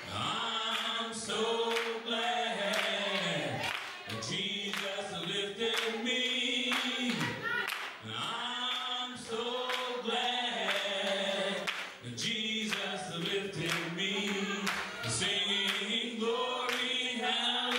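Choir and congregation singing a gospel hymn together, with sharp handclaps about every half second to second.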